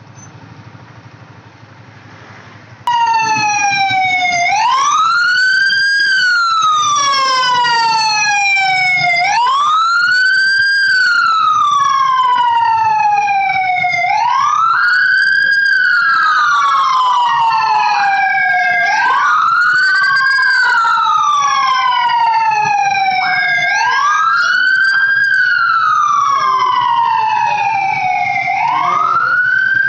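Police siren wailing in a repeating cycle, each cycle rising quickly and falling slowly over about five seconds. It cuts in loud and sudden about three seconds in, after a quieter start.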